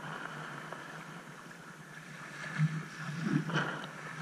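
Shallow seawater lapping and washing over a sandbar, with a few soft surges of wash in the second half.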